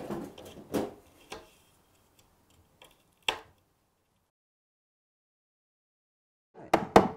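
Metal pincers clicking and scraping against a wooden window sash as they work the old sash cord out of its side groove: a few sharp clicks in the first half, and a brief clatter of knocks near the end.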